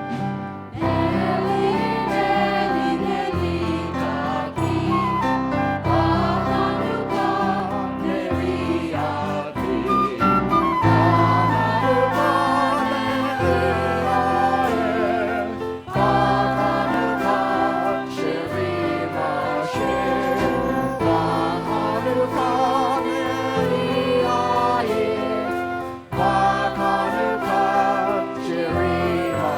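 Music with singing: voices carrying a melody over steady bass notes, with brief pauses about sixteen and twenty-six seconds in.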